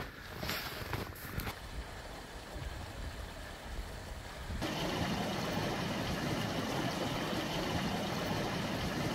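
Footsteps in snow, fainter and uneven, for the first few seconds; then, starting suddenly about halfway in, the steady rush of a small mountain stream flowing over and around snow-covered rocks under thin ice.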